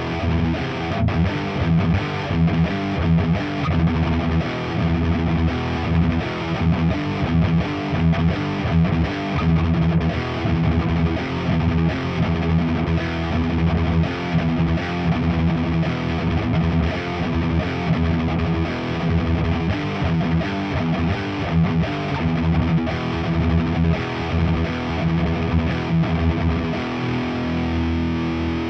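Nik Huber Krautster I electric guitar with its Häussel pickup, played through a Diezel VH4 amplifier into a 4x12 cabinet with Celestion speakers: continuous rhythmic riffing, with a chord left ringing near the end.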